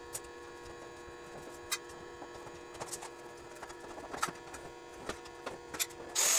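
Scattered light clicks and knocks of square steel tubing being handled over a steady hum, then an angle grinder starts up near the end with a sudden loud, dense hiss as it grinds the steel.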